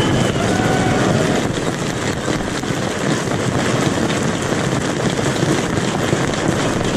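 Crowd applauding and cheering: a steady, dense patter of many hands clapping with voices shouting through it.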